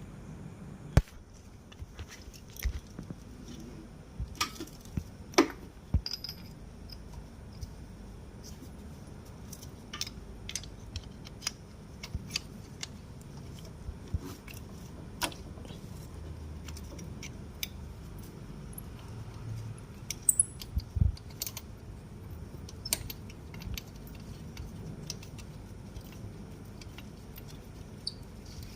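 Irregular metallic clinks, clicks and knocks of hand tools and small metal parts being handled while working on a motorcycle.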